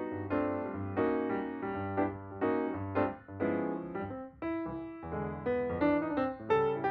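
Background piano music, notes and chords struck in a steady rhythm.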